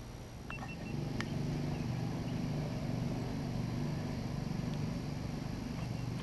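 A boat motor running steadily at low speed, a low hum that picks up about a second in. A few faint clicks come just before it.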